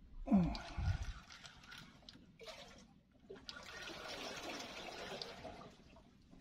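Spinning reel being cranked to bring in a hooked fish, a steady whirring rush that pauses for about a second near the middle. A brief low thump with a falling tone near the start.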